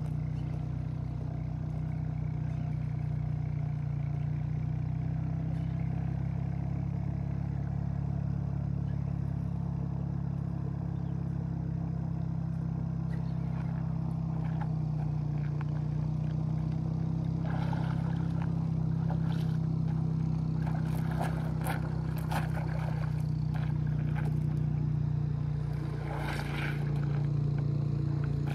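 A steady low mechanical hum, like a motor running, throughout, with scattered splashes and clatter in the second half.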